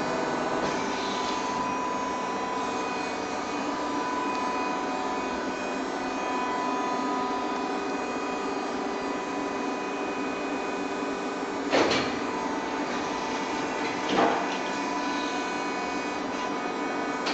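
Makplast 350 g plastic injection moulding machine running, a steady mechanical hum of its hydraulic pump motor with several fixed tones. Two sharp clunks stand out, about twelve and fourteen seconds in.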